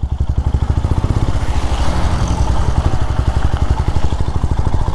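Motorcycle engine running steadily under way, a rapid, even putter.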